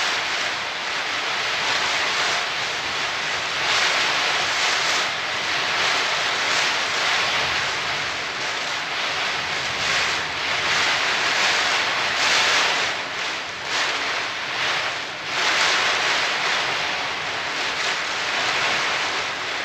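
Heavy rain outside, a loud, steady hiss that swells and eases every few seconds.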